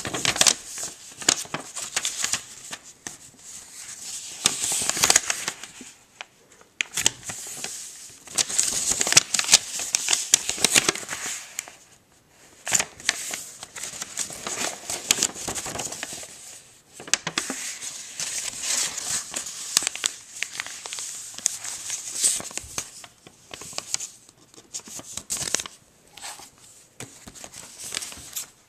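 A sheet of origami paper being handled and folded by hand: rustling and crinkling with small sharp creasing clicks, in bursts separated by short pauses.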